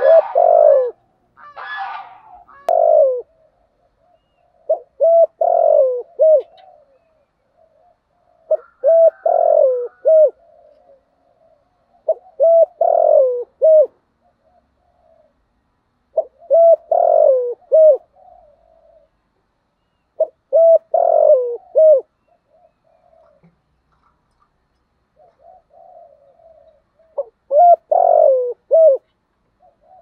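Spotted dove cooing its song: a short phrase of low coos every few seconds, with a longer pause about three quarters of the way through. It is the deep 'giọng thổ' style of song that Vietnamese dove keepers prize in a decoy bird.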